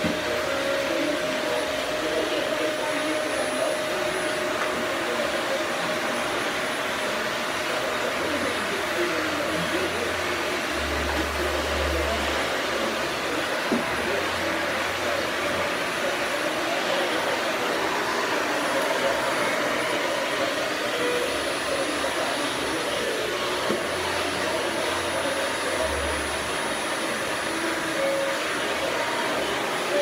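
Canister vacuum cleaner running steadily, its motor and suction making an even whooshing hum while the hose and wand are worked over the floor.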